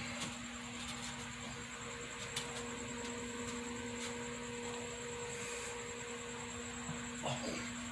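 Steady low hum of an electric fan, with a thin high steady tone above it and a few faint clicks.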